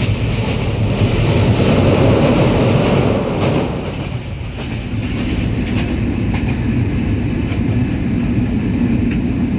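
Train running along the track: a steady rumble with faint clicks from the rail joints. The noise swells about a second and a half in, eases off about four seconds in, then settles into a steady hum.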